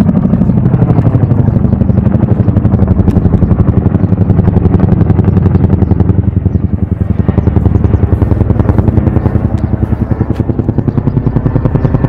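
Tandem-rotor helicopter flying overhead, loud, its rotor blades beating in a rapid, even pulse.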